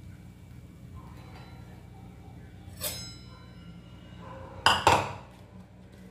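Kitchen utensil clinking against cookware: one sharp clink about three seconds in, then two louder clinks close together just before five seconds, each ringing briefly.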